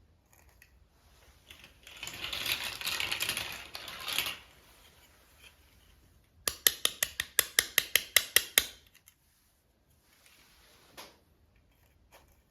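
Toy packaging being handled: a few seconds of crinkly plastic rustling, then a quick run of about a dozen sharp clicks, about five a second, and one faint click near the end.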